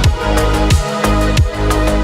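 Background music with a steady beat: deep bass hits that drop in pitch about every two-thirds of a second, over held chords.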